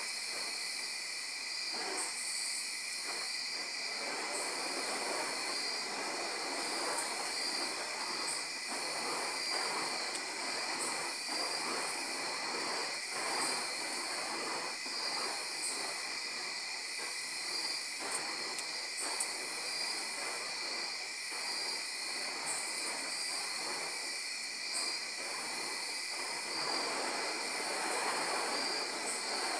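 A steady, pulsing chorus of night insects, over the rough whooshing of the flaming wicks on spinning fire staffs as they circle.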